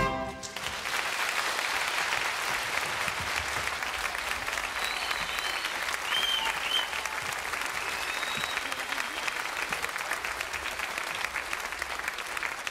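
Studio audience, largely children, clapping steadily after a song; the band's final note stops about half a second in.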